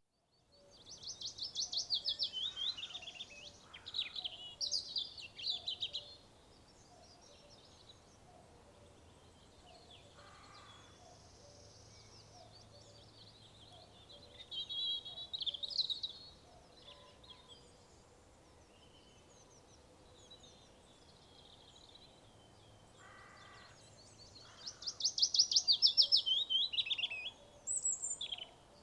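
Songbirds singing: loud, rapid trilled phrases in three bouts (near the start, around the middle and near the end), with quieter calls between them over a faint, steady low background rumble.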